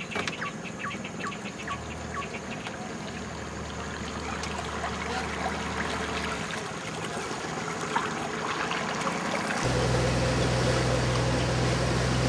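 A bird gives a quick series of short, falling chirps at the start, about four a second, then calls once more later. About ten seconds in, this gives way to a motorboat's engine running steadily, with water rushing along the hull and wake.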